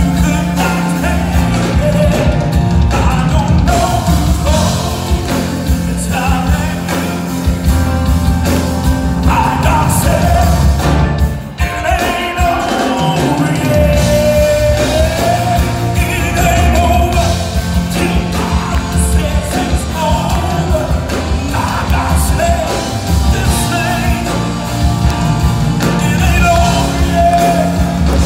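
A male lead vocalist sings an up-tempo gospel song live with a full band of drums, keyboard and guitars. The band drops out briefly about eleven seconds in, then comes back in.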